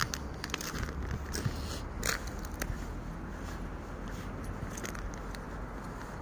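Footsteps crunching in cold, dry snow, a string of short crunches that is strongest about two seconds in and thins out later. A low, steady rumble lies beneath.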